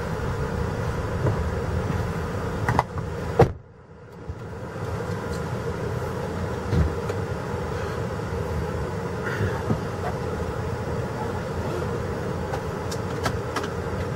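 Steady car noise, a low hum with a constant tone, broken by two sharp knocks about three seconds in. The level dips briefly right after the second knock, then the steady hum returns.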